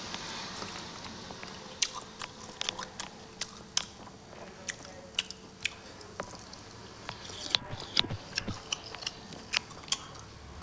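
Close-miked wet chewing and lip-smacking of mouthfuls of rice and bai (Mizo vegetable stew) eaten by hand, with many sharp, irregular mouth clicks.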